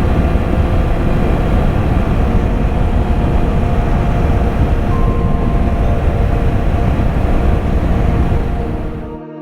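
Motorcycle running steadily at road speed, a loud, dense engine-and-wind noise, that cuts off suddenly near the end as soft ambient music comes in.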